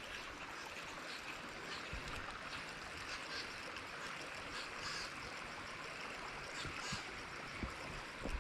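Creek water running steadily, with a few faint soft knocks.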